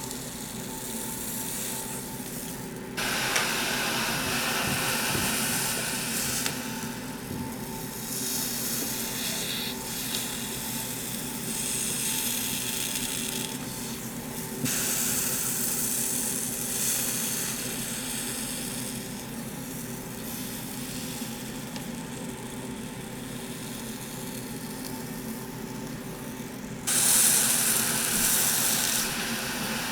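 Red-hot knife sizzling and hissing as it sinks into moist Play-Doh, the water in the dough flashing to steam. The hiss comes in several stretches that jump up or down in level abruptly, over a faint steady hum.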